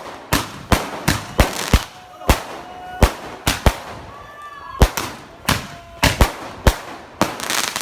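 Fireworks going off: a rapid, irregular run of sharp bangs, about two or three a second.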